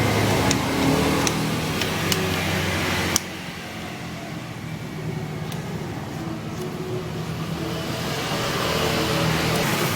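Honda Vario Techno 110 scooter's single-cylinder engine running, with a few sharp clicks in the first three seconds. The sound drops suddenly about three seconds in, then the engine note builds slowly toward the end.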